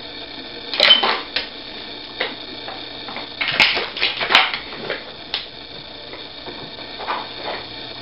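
Dog working a Nina Ottosson Dog Brick treat puzzle: its plastic sliding blocks and lids clack and knock irregularly, about nine knocks with a quick cluster a little after the middle.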